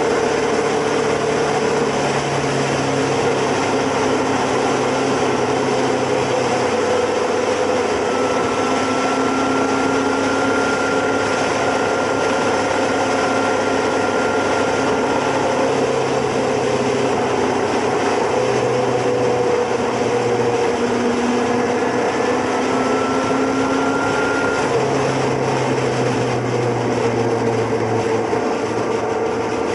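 Motorcycle engine running steadily at cruising speed, its pitch drifting slowly up and down, under a constant rush of wind and road noise, as heard from on board a moving motorcycle.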